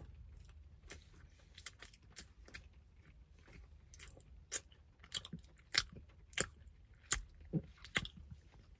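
Banana bread being chewed close to the microphone: irregular wet mouth clicks and smacks, louder and more frequent in the second half.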